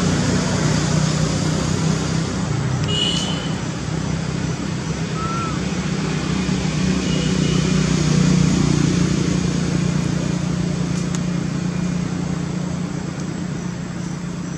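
A steady low mechanical rumble, with a few brief high chirps about three seconds in and a short rising squeak about five seconds in.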